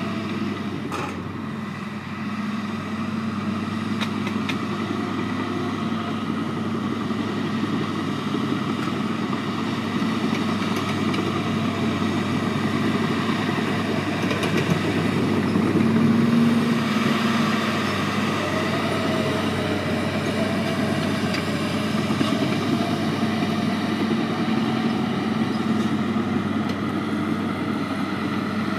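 Diesel engine of a small crawler dozer running steadily as it pushes and spreads fill dirt, getting louder about halfway through as it works in closer with a load.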